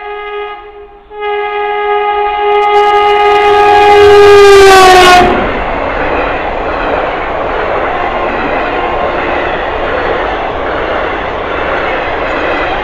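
A WAP-7 electric locomotive's horn sounds a long blast with a short break about a second in. It comes back louder, drops in pitch as the locomotive passes, and cuts off about five seconds in. Then the express's coaches run past with a steady rushing rattle.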